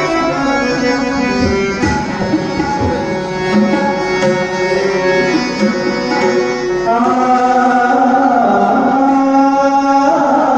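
Devotional abhang music: a harmonium plays a sustained melody over hand-drum strokes. About seven seconds in, a male singer comes in with long held notes that bend in pitch.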